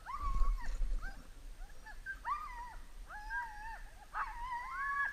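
Husky sled dogs whining and yipping: a string of short, high, rising-and-falling cries, one after another.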